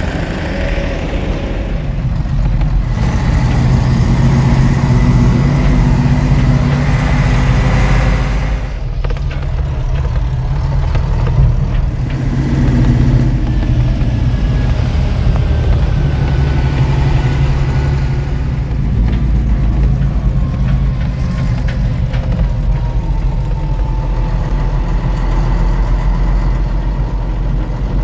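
Kato truck crane's diesel engine running as the crane drives off, a steady heavy engine hum whose pitch shifts slowly with speed.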